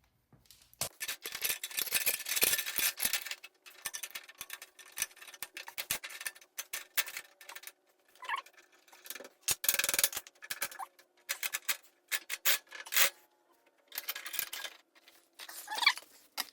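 Metal motorcycle drive chain rattling and clinking in irregular runs of small metallic clicks as it is handled and fitted onto the sprockets.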